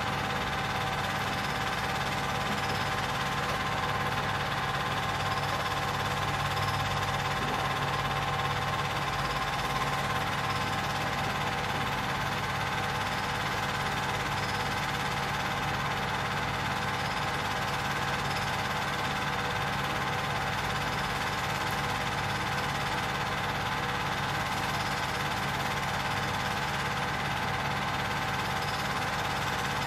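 Film projector running: a steady mechanical whir and hum with many steady tones, holding one level throughout.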